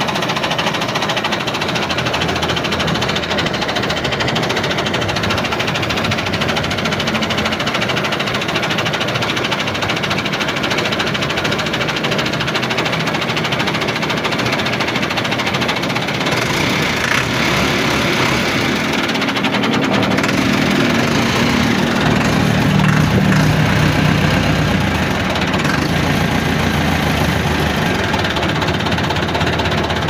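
An engine running steadily with a knocking rattle, its low hum growing a little stronger about two-thirds of the way through.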